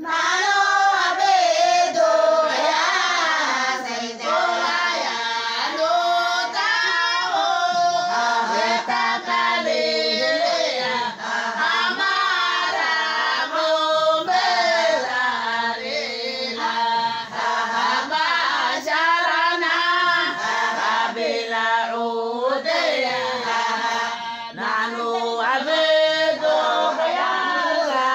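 A group of women singing a Somali Bantu song together.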